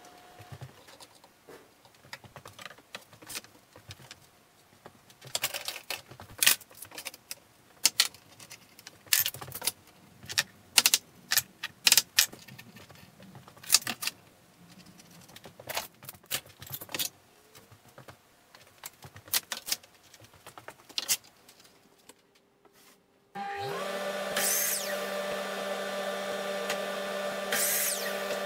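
Irregular sharp clicks and knocks of bar clamps and wooden rails being fitted and tightened during a glue-up. After a short pause, about three-quarters of the way in, a power miter saw starts and runs with a steady whine, and its blade cuts a wooden board twice.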